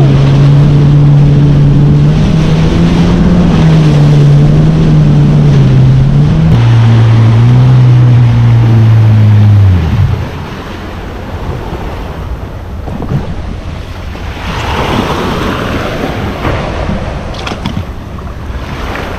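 Jet ski engine running at a steady speed, dropping in pitch about six seconds in, then winding down and stopping about ten seconds in. After that, wind and water noise.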